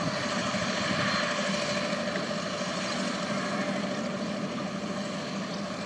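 Jet airliner's engines running as it moves on the runway: a steady rushing noise with a faint steady whine, easing off slightly over the last few seconds.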